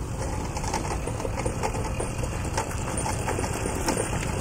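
Small moped engine running steadily as the moped rides up toward the listener.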